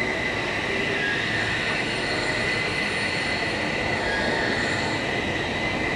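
Face-milling cutter of a heavy-duty plano milling machine cutting metal: a steady grinding noise with a constant high-pitched whine running through it.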